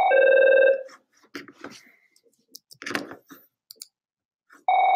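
A two-note falling electronic chime, a higher note then a lower one, ending just under a second in and sounding again near the end, with a few soft mouse clicks in between.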